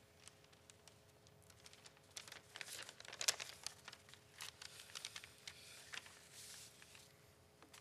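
Faint rustling, crinkling and light clicks of handling noise close to the microphone, busiest between about two and six seconds in, as the next speaker settles in at the microphone.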